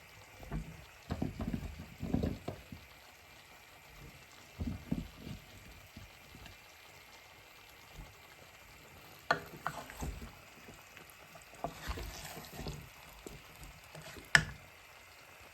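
Cooking at a pot of curry: low stirring and handling noises in the first few seconds, then several sharp clinks of a utensil against the pot, the loudest a little before the end.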